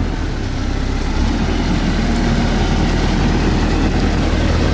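Caterpillar 312C L crawler excavator's diesel engine idling steadily, a low, even rumble.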